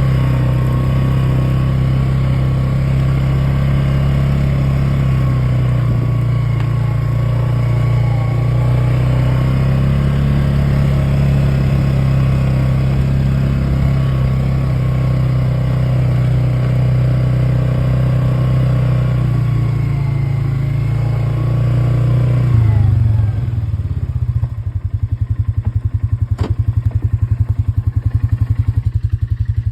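Polaris quad's (ATV's) engine running at a steady speed, then dropping at about 23 seconds to an evenly pulsing idle.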